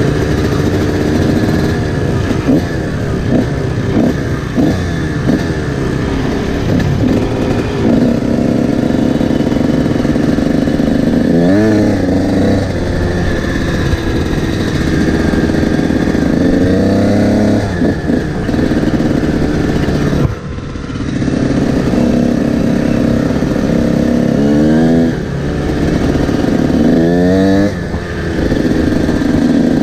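Honda CR125 two-stroke dirt bike engine running on the road, revving up with a rising pitch several times as it pulls through the gears, with a brief drop in level about two-thirds of the way through.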